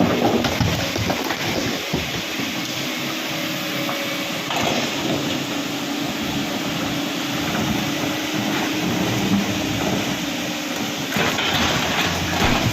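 Heavy earth-moving machinery running, a steady clattering mechanical din with engine noise. It surges louder briefly a few times.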